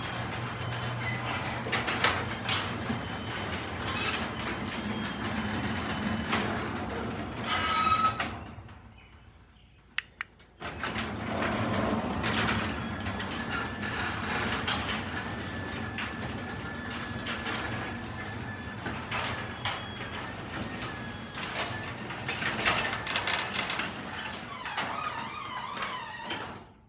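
Chamberlain B2215 garage door opener running as it moves a garage door, with the door rattling and squeaking in its tracks. It stops about eight seconds in, there are a couple of clicks, then it runs again for about sixteen seconds, moving the door back the other way.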